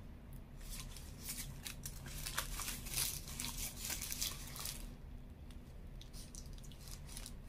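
Paper burger wrapper crinkling and tearing as it is folded back from a chicken burger, a rapid run of crackles that is densest in the middle and thins out after about five seconds.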